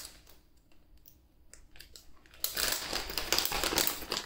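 Plastic underwear packaging crinkling as it is handled. After a quiet stretch with a few soft rustles, steady crinkling starts about two and a half seconds in.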